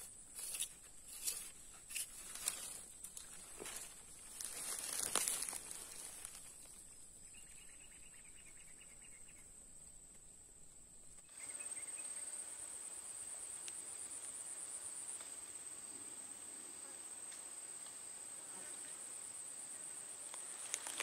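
Insects shrilling in a steady, high-pitched drone, growing louder about halfway, with a faster pulsing trill over it from then on. A few faint clicks and rustles in the first six seconds.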